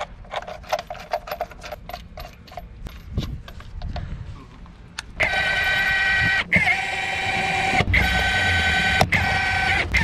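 Light metallic clicking as lug nuts are started by hand on a wheel stud. About five seconds in, a cordless impact wrench starts spinning the lug nuts down with a loud steady whine, stopping briefly between nuts three times.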